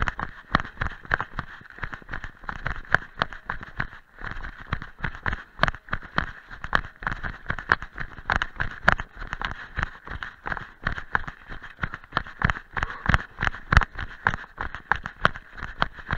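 Running footsteps crunching through dry fallen leaves on a dirt trail, a quick even stride of about three steps a second.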